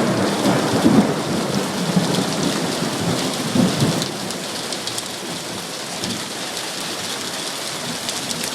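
Heavy rain in a thunderstorm, pouring with a steady hiss. A thunderclap breaks just as it begins and rolls on in swells for about four seconds before fading, leaving the rain alone.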